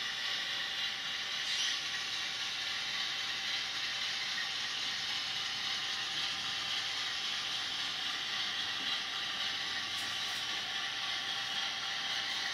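Model WDG 4P diesel locomotive's sound unit playing a steady diesel idle through its small onboard speaker, the locomotive standing still.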